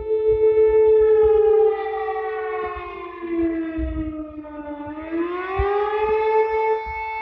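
Emergency warning siren wailing: a loud steady tone that slides down in pitch about halfway through, then climbs back up.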